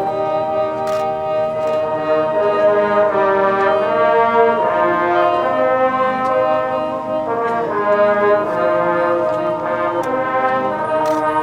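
Marching band brass section playing held chords that shift every second or two, with a few sharp percussion hits over the top.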